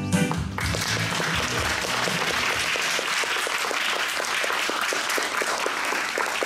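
Recorded music cuts off about half a second in, then an audience applauds steadily.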